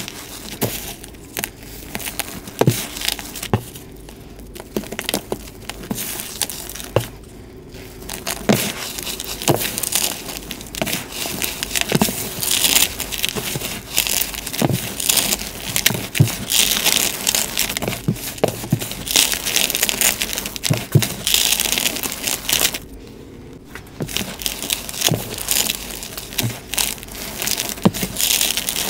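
Hands crushing and squeezing a crumbled reform of gym chalk, cornstarch and calcium carbonate: a continuous crunching and crumbling with many small crackles. It goes quieter briefly twice, about a quarter of the way in and again near the end.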